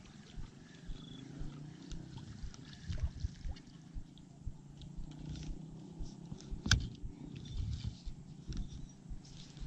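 Spinning reel being cranked to retrieve a lure: a low, uneven whirr with small clicks, and one sharp click about two-thirds of the way through.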